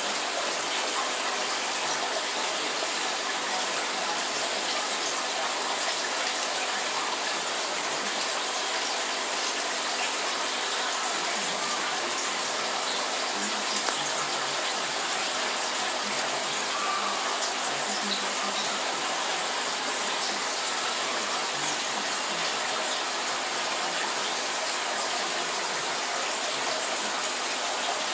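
Steady rush of moving water from an aquarium's filter and aeration, with one small click about halfway through.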